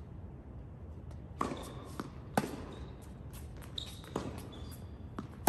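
Tennis rally: a string of sharp pops from the ball being struck by racket strings and bouncing on the hard court, about half a dozen at uneven intervals, the loudest about two and a half seconds in and another near the end.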